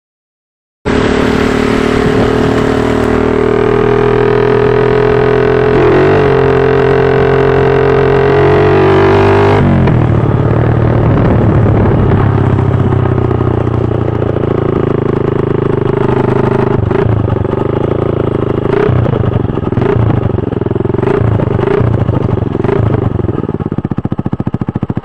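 Honda TMX125 motorcycle's single-cylinder four-stroke engine running through a homemade open exhaust pipe made from a Baygon insecticide can. It comes in abruptly about a second in, holds a steady raised speed, then drops to a lower speed about ten seconds in, with short throttle blips through the second half.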